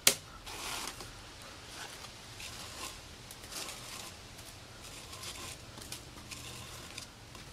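Rope being looped and pulled through by hand, rustling and sliding in short scratchy strokes, with a sharp click right at the start and a few light clicks near the end.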